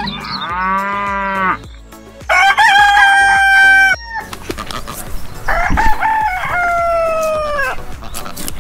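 Rooster crowing three times, each crow a long held call that drops away at the end, the middle one the loudest.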